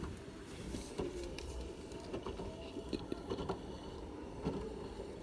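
Hotpoint WT761 Ultima washing machine working through a rinse at low drum speed: a steady low rumble with irregular light knocks and clicks from the tumbling load.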